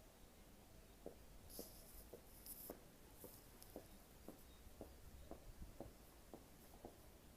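Near silence, with faint, evenly spaced soft ticks about twice a second starting about a second in, and a few faint hissy scratches near the start of them.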